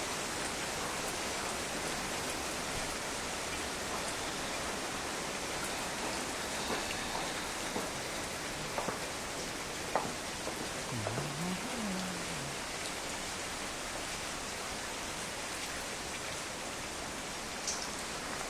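Heavy rain falling steadily, an even hiss with a few sharper drip ticks about midway through.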